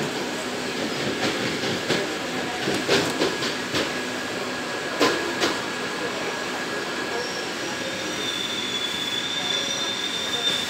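Madrid Metro Line 5 train running through a tunnel, heard from inside the car: steady running noise with several sharp knocks in the first half. From about seven seconds in, a high-pitched wheel squeal sets in and grows as the train slows into the station.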